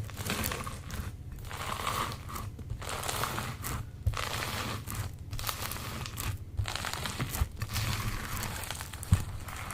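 Slime being squeezed and worked by hand, crackling and crinkling in repeated squeezes a little over a second apart, with a sharp pop near the end.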